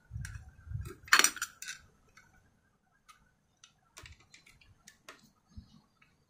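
Metal clicks and clinks of a sewing machine's cover plate being handled and fitted back on, with a louder knock about a second in and scattered light ticks after it.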